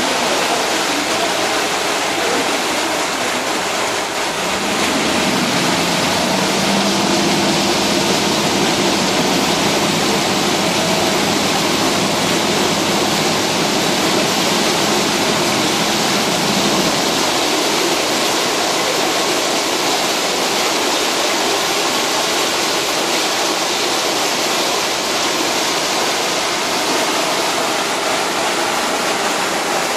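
Steady rushing and churning of water along a moving boat's hull and wake. A faint low engine hum joins about four seconds in and fades out after about seventeen seconds.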